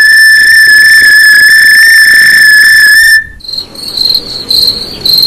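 Played-back voice message with no words: a loud, steady, piercing high tone that cuts off about three seconds in, followed by quieter high chirping in short pulses a few times a second, like crickets.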